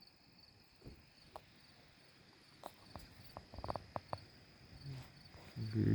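Crickets chirping steadily with faint scattered clicks and taps. Near the end a dog lets out a loud, drawn-out vocal sound.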